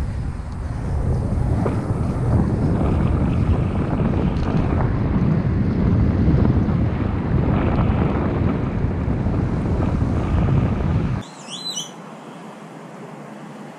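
Wind buffeting the helmet camera's microphone on a moving mountain bike, a loud steady rumble that cuts off suddenly about eleven seconds in, leaving a quieter steady background with a few brief high chirps.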